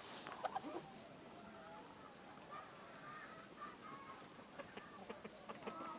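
Hens clucking softly with short pitched calls, and a few sharp clicks about half a second in and again near the end.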